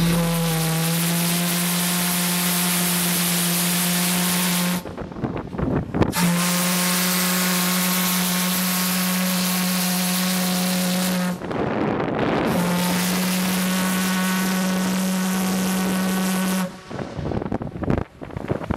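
Steam whistle of the steam tug S.S. Styrbjörn sounding three long blasts of about five seconds each, a steady low two-note chord over a hiss of escaping steam.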